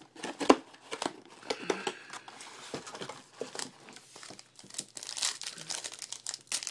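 Shiny plastic trading-card pack wrappers crinkling as a pack is pulled from the box and its wrapper is picked and torn open by hand, an irregular crackling with louder crinkles about five seconds in.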